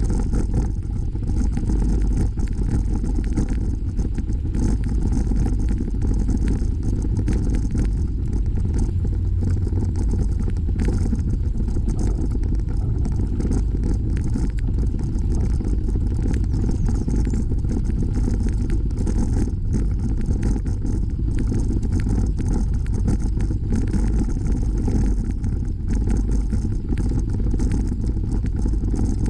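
Steady rumble of wind and tyre noise on a bicycle-mounted camera's microphone while riding a rough trail, with small rattles and knocks throughout.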